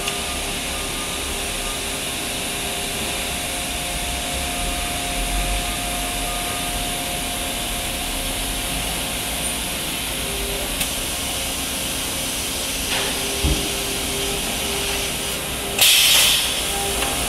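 Sheet-fed thermoforming machine running with a steady mechanical hum and hiss. There is a single knock about 13 seconds in and a loud burst of hiss near the end.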